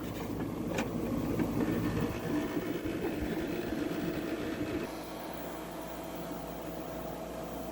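A 1985 Fedders AirTemp window air conditioner running, its Matsushita rotary compressor and Fasco fan motor giving a steady hum. For the first five seconds or so there is irregular handling noise on the unit, with a sharp click about a second in, then only the hum.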